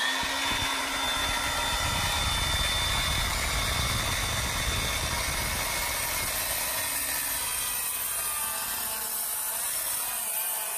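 Electric miter saw (chop saw) running at full speed with its blade fed slowly across the grain of a thick wooden board: a steady motor whine over continuous cutting noise.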